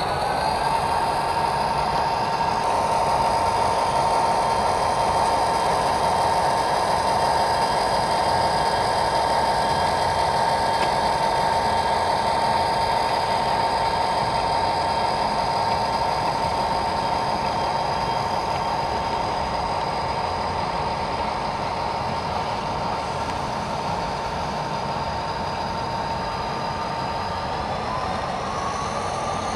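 Sound-equipped HO scale model diesel locomotive playing its engine sound through its small speaker: a steady running note with a whine over a hiss. Near the end the pitch rises as the engine revs up.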